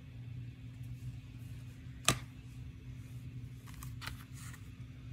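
Plastic DVD cases being handled: one sharp click about two seconds in, then a few softer clicks as a case is turned over, over a steady low hum.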